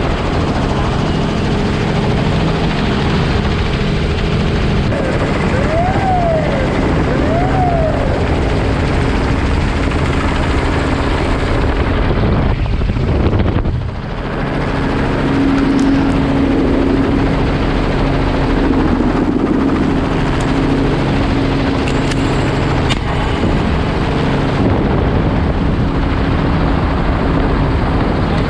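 Small helicopter's rotor and engine running steadily, with rushing air through the open door. The noise dips briefly about halfway through.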